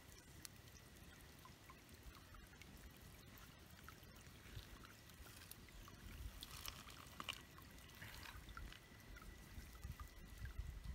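Near silence: faint outdoor background with a thin steady high tone, and soft rustling and small clicks in the middle as fish are handled in a plastic bag.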